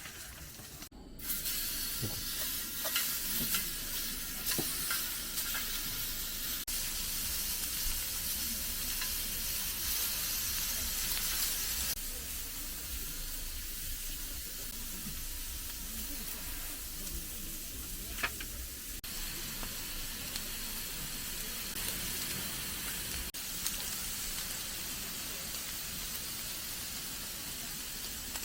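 Food sizzling steadily on a hot cooking surface, starting about a second in after a brief drop-out, with a few faint clicks.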